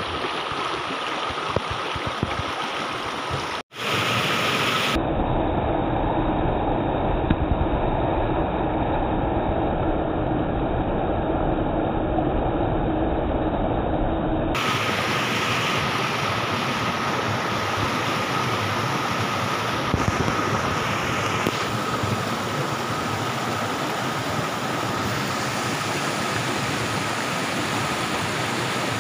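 Steady rush of water from a shallow rocky stream pouring over stones and a small waterfall. The sound cuts out for an instant about four seconds in.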